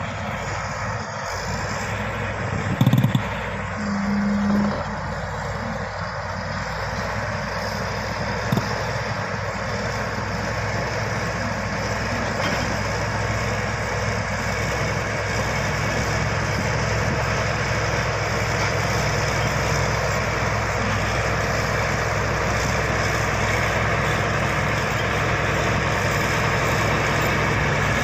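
Heavy earthmoving machinery with its diesel engine running steadily, with two brief louder sounds about three and four seconds in and a slight rise in engine sound about halfway through.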